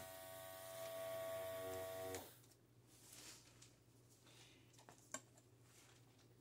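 Small makeup-airbrush compressor running with a steady electric hum, switched off about two seconds in. A single light click a few seconds later.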